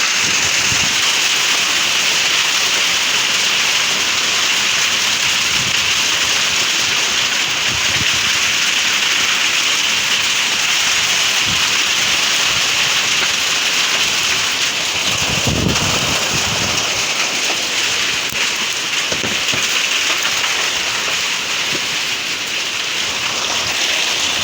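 Hailstorm: hail and heavy rain pelting down in a steady, dense hiss, with a brief low rumble about fifteen seconds in.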